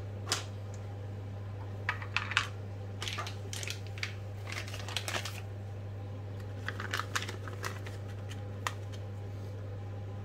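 Clear plastic parts bags crinkling and rustling as they are handled, with scattered light clicks and taps, over a steady low hum.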